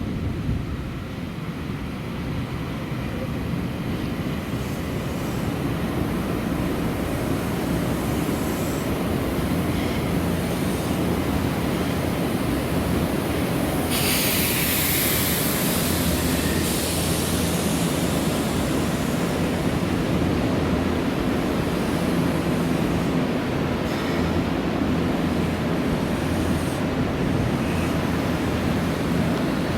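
Electric train at a station platform, running with a steady low hum that grows louder over the first several seconds. About 14 seconds in there is a burst of air hiss lasting a couple of seconds.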